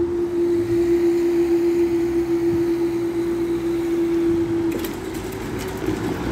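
Level crossing barrier machine running with a steady hum while the red-and-white barriers rise, stopping about five seconds in, followed by a few faint clicks.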